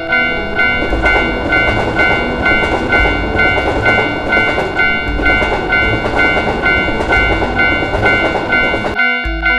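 Japanese railroad-crossing warning bell ringing its repeated two-tone "kan-kan" over the loud rushing rumble of a passing train. The train noise cuts off about nine seconds in while the bell keeps ringing.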